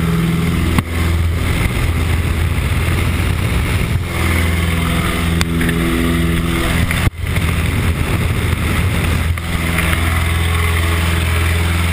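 Jump plane's engine and propeller droning steadily, mixed with wind rush through the open cabin door. Two sharp knocks, about a second in and about seven seconds in, each briefly drop the level.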